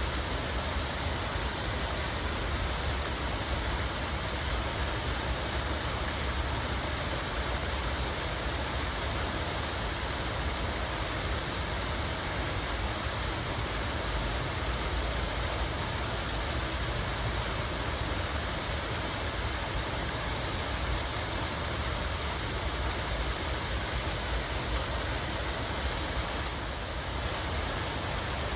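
Water running steadily, an even rushing hiss with a low rumble underneath.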